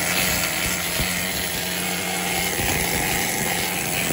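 Pneumatic air hammer chipping rust off a van's corroded steel underbody, running steadily.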